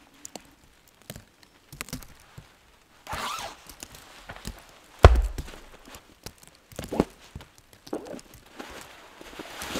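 Footsteps in snow and rustling of nylon camping gear as a stuff sack is picked up and handled, with scattered knocks and one loud thump about five seconds in.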